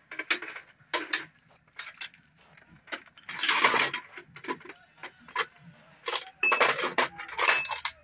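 Irregular metal clinks, taps and scrapes of tools and parts being handled on an opened-up diesel engine, with a longer scraping rush about three and a half seconds in and a close run of taps near the end.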